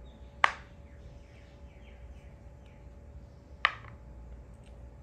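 Two sharp clicks of makruk (Thai chess) pieces being set down on the board, about three seconds apart, with faint bird chirps in the background.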